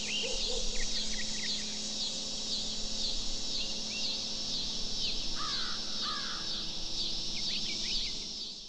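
Birds chirping and calling in quick repeated notes, over a steady high-pitched insect buzz; the sound cuts off suddenly at the end.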